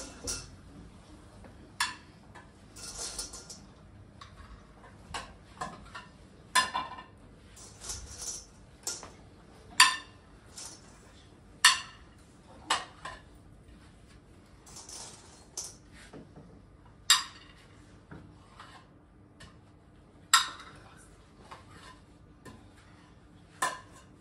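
A serving utensil clinking against a stainless steel bowl as food is dished out onto plates: a dozen or so sharp, ringing metal clinks a few seconds apart, with brief scraping between them.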